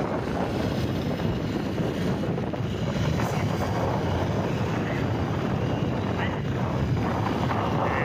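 Wind buffeting the microphone on a moving motorcycle, with engine and road noise underneath, steady throughout.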